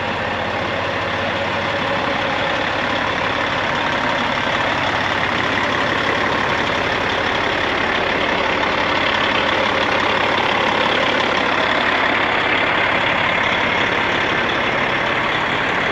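1998 Peterbilt semi truck's diesel engine idling steadily, growing slightly louder around the middle.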